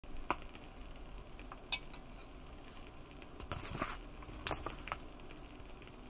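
Scattered sharp clicks and clinks, about five or six, over a faint steady hiss, the loudest cluster about three and a half seconds in.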